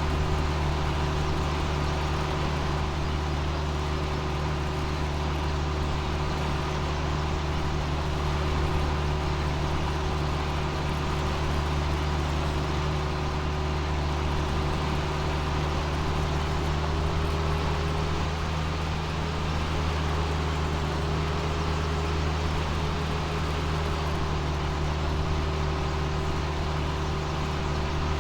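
Large farm machine's diesel engine running steadily under load, a deep drone with a constant whine above it.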